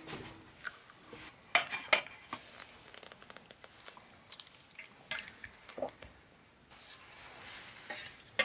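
Eggs being cracked and opened over a stainless steel bowl: a run of sharp clicks and clinks of eggshell and hands against the metal, with shells dropped into a second metal bowl. Near the end a metal spoon clinks in the bowl of raw eggs.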